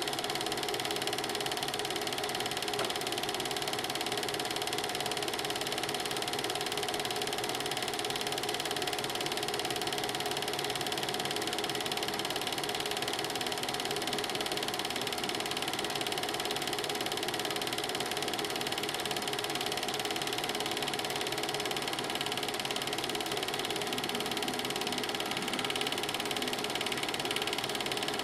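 Film projector running: a steady, even mechanical clatter of the film transport, with no other sound over it.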